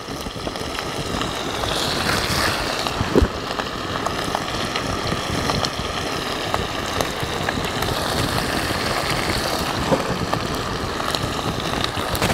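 Trout frying in oil in a pan over an open wood fire: a steady sizzle with a few sharp pops, under wind rumbling on the microphone.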